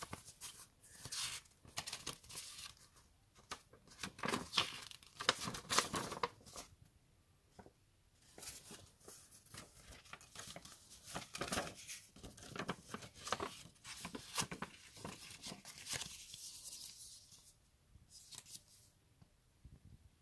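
Folded paper leaflets handled and unfolded by hand: crisp paper rustling and crinkling in irregular bursts, pausing briefly about seven seconds in and dying away near the end.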